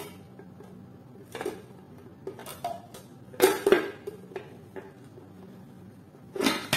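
Clear plastic blender chopper bowl and its blade unit being handled and fitted together, giving a scattered series of hard plastic clicks and knocks, the loudest two close together about halfway through.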